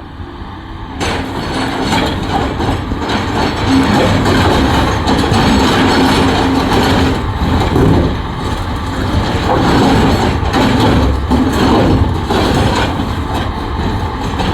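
Caterpillar earthmoving machine's diesel engine running loudly under work, with a dense rattling mechanical noise that jumps up sharply about a second in.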